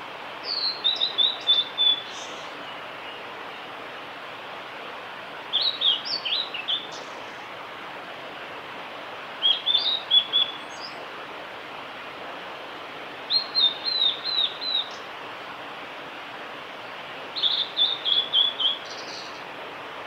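Male blue-and-white flycatcher singing: five short song phrases, one about every four seconds. Each phrase is a quick run of high notes lasting about a second and a half. A steady hiss sits beneath them.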